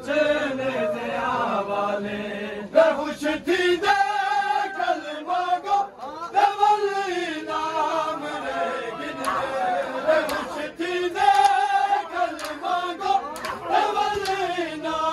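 Crowd of men chanting a noha (Shia lament) together, with sharp slaps from chest-beating (matam) running through it.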